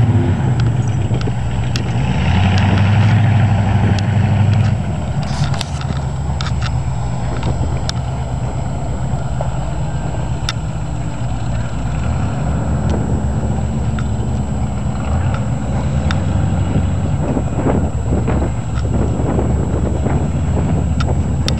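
Engines of off-road 4x4 trucks running, with a louder stretch of revving about two to five seconds in.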